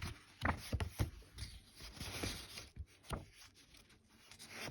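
Faint, irregular light knocks and clicks, about a dozen scattered through a quiet pause.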